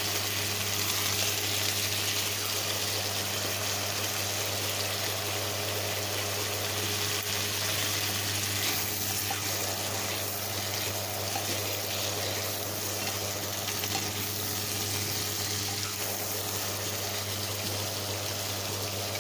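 Green beans, onion and freshly added sliced carrots sizzling steadily in hot oil in a nonstick wok as they are stir-fried with a wooden spatula. A steady low hum runs underneath.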